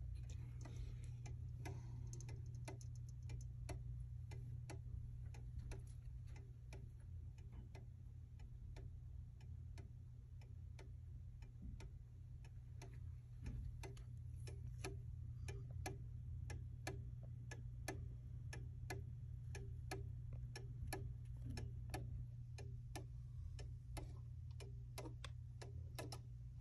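Antique Junghans pendulum wall clock ticking steadily, about two ticks a second, over a steady low hum.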